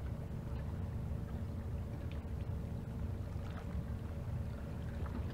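Fishing boat's engine running at steady cruising speed: a constant low drone with a faint steady tone above it.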